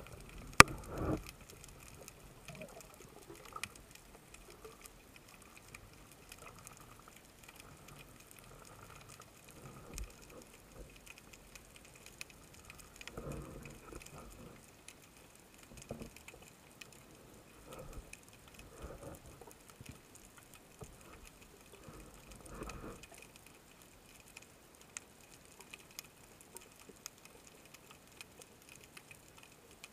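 Quiet underwater sound through a camera's waterproof housing: faint hiss with scattered small clicks, one sharp click just after the start, and a few soft muffled bumps in the middle from the speargun and diver shifting.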